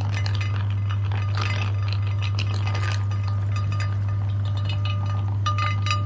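Electric meat grinder running with a steady low hum, with light clinking and rattling on top.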